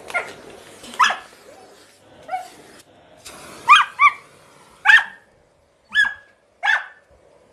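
A dog barking in short, high yips, about eight in an uneven series, with two quick ones in a row about halfway through.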